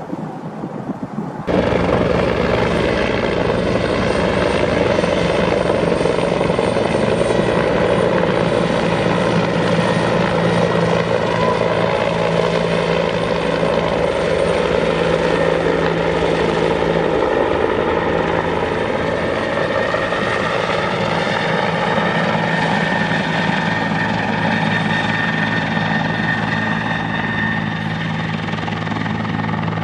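Bell 412 four-bladed, twin-engine utility helicopter in flight: rotor and turbine noise, loud and steady, with a held high whine. It cuts in sharply about a second and a half in, after a brief stretch of quieter noise.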